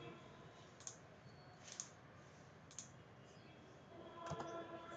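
Faint single clicks of a computer mouse, about one a second and four in all, each click selecting one more object in a CAD drawing. A faint steady hum comes in near the end.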